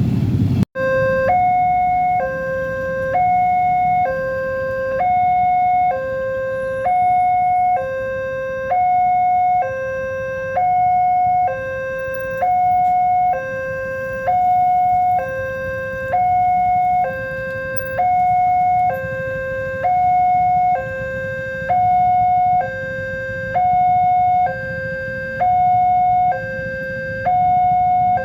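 Railway level-crossing warning alarm sounding a steady two-tone hi-lo signal, switching pitch about once a second, which signals that a train is approaching and the gates are closing. A low rumble of traffic runs underneath.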